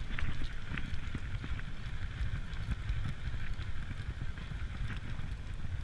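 Wind buffeting the microphone, with an even background hiss and a few faint ticks.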